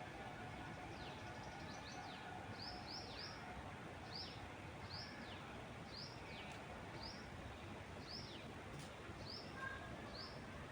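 A small bird repeating a short, high chirp that sweeps downward in pitch, about once a second, over a steady hiss of wind in the trees.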